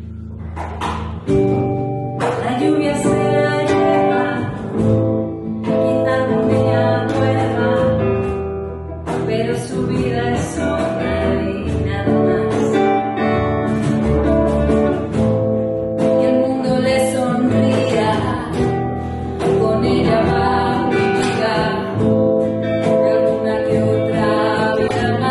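Live acoustic band playing a song: women's voices singing over acoustic guitar, upright double bass and hand percussion.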